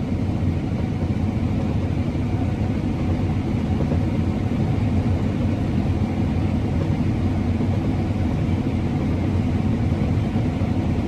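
Combine harvester running steadily while cutting wheat: a constant, low engine and machinery drone.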